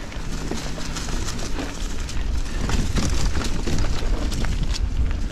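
Giant Trance 29 mountain bike riding fast over dirt singletrack, with wind noise on the microphone as a steady low rumble and frequent clicks and rattles from the bike and its tyres over the trail.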